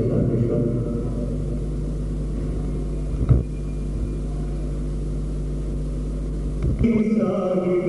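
Steady low electrical hum, with a single thump about three seconds in. Near the end a man's voice starts chanting.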